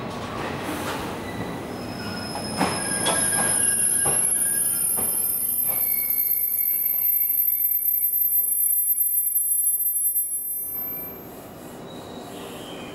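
Blue 24-series sleeper coaches rolling slowly into a station: wheels click over rail joints for the first few seconds, then the brakes set up a loud, high squeal of several pitches. The squeal cuts off suddenly about eleven seconds in, as the train comes to a halt.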